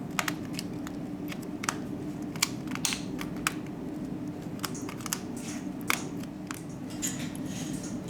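Small sharp clicks and taps, irregular and about a dozen in all, from hand tools and parts being handled while a smartphone is taken apart, over a steady low hum.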